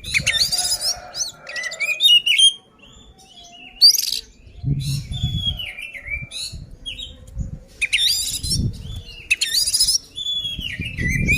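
Oriental magpie-robin (kacer) singing loudly in full, aggressive territorial song: repeated whistled phrases that slur downward, broken up by bursts of high, scratchy chattering notes.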